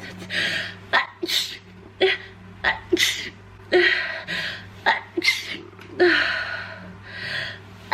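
A person with a cold sneezing again and again: a rapid run of sneezes, several in a row with gasping in-breaths between them.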